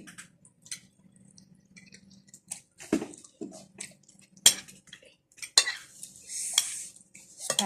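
Cutlery clinking and scraping against plates at a meal, with scattered light clicks and a few sharper knocks in the second half.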